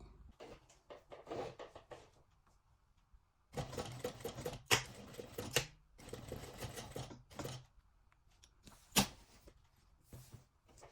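Sewing machine stitching in two short runs, the second starting after a brief pause, with a few sharp clicks between and after.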